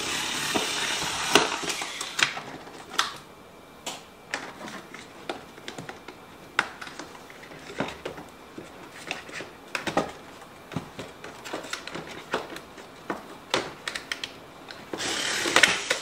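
Cordless electric power scissors buzzing as they cut through zip ties and cardboard packaging, once at the start and again near the end. In between come scattered sharp clicks and snaps as the zip ties are cut and pulled free.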